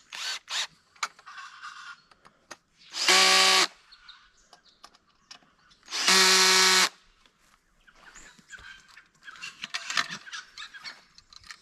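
Cordless drill-driver running in two short bursts, about three seconds apart, as it drives the screw tight on an awning anti-flap bar, with light clicks of handling between them.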